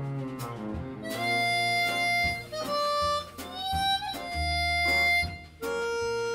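Harmonica playing a slow jazz melody of long held notes, one sliding up in pitch about halfway through, with bowed cello, double bass and drums behind it.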